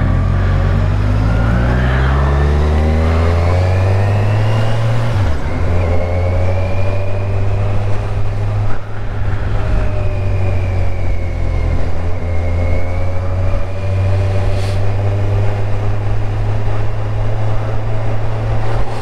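Motorcycle engine running under way, its pitch falling over the first few seconds as the bike slows, then holding at a low, steady pace.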